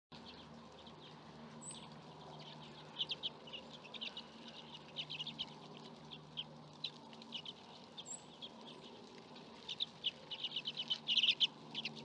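Common redpoll calling: short, dry chips in loose runs, closing in a fast chattering series about ten seconds in.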